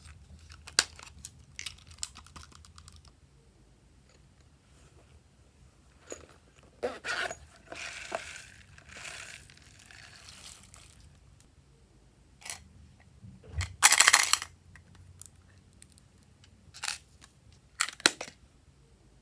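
Slime being squeezed, stretched and folded by hand: scattered sharp clicks and pops of trapped air, a longer crackling stretch in the middle and a loud burst of crackling about two-thirds through.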